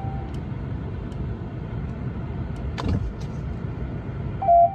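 Steady low hum in a stationary Ram 3500's cab with the ignition on, a single click about three seconds in, and a short, loud electronic dashboard chime near the end. The chime comes as the truck accepts a new tire-size setting, just before its confirming horn honks.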